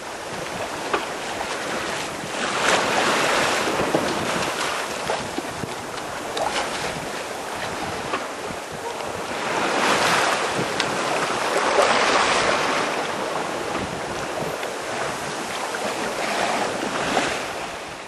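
Sea water rushing and splashing along a sailboat's hull as it sails through waves, with wind buffeting the microphone. The rush swells and eases in long surges, loudest a little past the middle.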